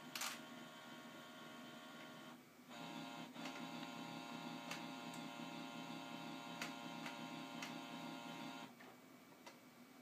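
Printer-scanner's motor whining steadily as it runs, with a sharp click just after the start. It pauses briefly about two and a half seconds in, then runs again louder, with a few clicks, and stops about nine seconds in.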